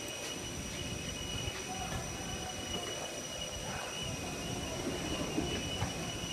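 Running noise inside a crowded moving passenger vehicle: a steady low rumble with a constant high-pitched whine.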